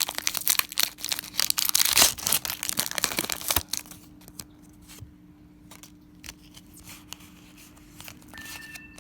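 A foil Pokémon booster pack being torn open, its wrapper crinkling and tearing loudly for about the first three and a half seconds. After that come only quiet scattered clicks and light rustles of handling.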